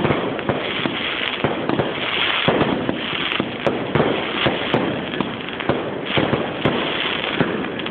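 Fireworks going off: a dense, continuous crackle of many irregular bangs and pops, several a second.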